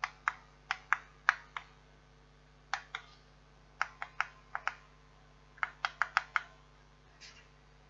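Plastic push-buttons on a digital weather station's display unit clicking as they are pressed, about eighteen sharp clicks in quick runs of two to five, with a softer rustle near the end.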